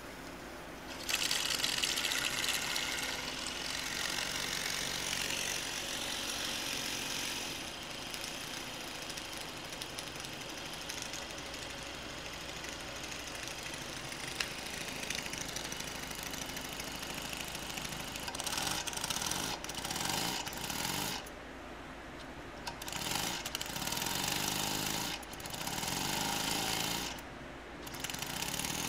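Single-cylinder vertical brass model steam engine running on steam from its small boiler: a rapid hissing chuff over steady steam hiss. The hiss starts abruptly about a second in, and near the end it briefly drops out twice.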